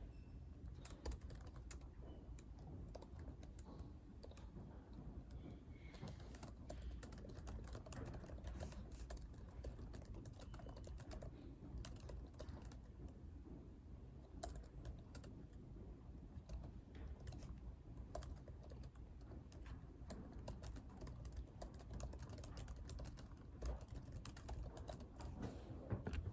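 Typing on a computer keyboard: a steady run of soft keystrokes with short pauses, over a low room hum.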